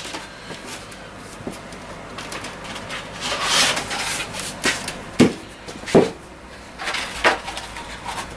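Handling noises at a workbench: a brief rustle about three seconds in, then several sharp knocks of small objects being picked up and set down on wood.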